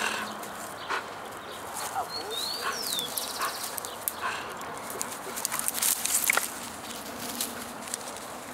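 A dog makes short, separate noises while tugging at a plastic frisbee that a person is holding. A bird warbles briefly about two to three seconds in.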